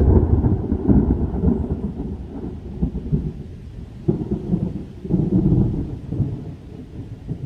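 Thunder rolling: a deep rumble, loudest at the start, dying down and then swelling again in two more rolls about four and five seconds in.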